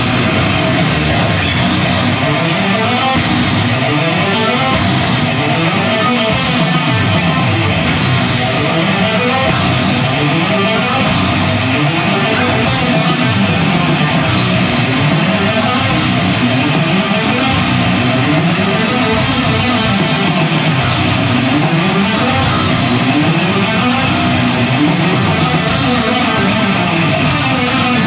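Electric guitar, amplified, played in a heavy metal style: an unbroken stream of fast runs of notes climbing and falling in pitch.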